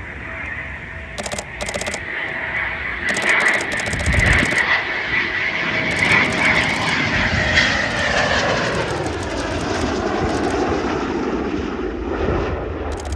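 Eurofighter Typhoon jet flying past with its twin Eurojet EJ200 turbofans roaring, a high whine on top that drops steadily in pitch as the jet goes by. A DSLR shutter clicks in rapid bursts throughout, picked up close by the phone mounted on the camera.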